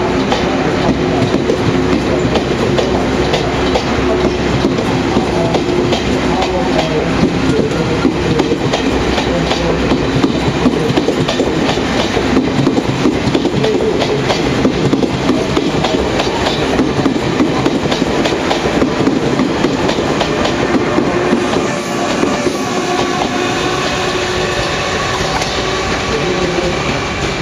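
Taiwan Railways passenger train passing close by, its wheels clattering over the rail joints in a steady rapid run of clicks over a continuous rumble. The clatter eases a little about three quarters of the way through as the last cars go by.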